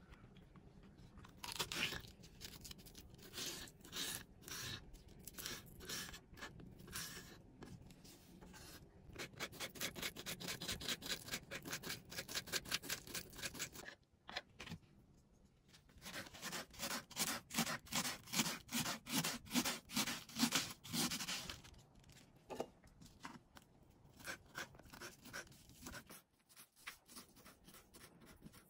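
Kitchen knife chopping vegetables and herbs on a bamboo cutting board: quick runs of crisp strikes, about four a second, broken by short pauses.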